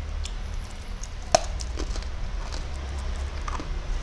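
Scattered clicks and smacks from eating a lollipop and handling its plastic wrapper close to the microphone, with one sharp click about a third of the way in, over a steady low hum.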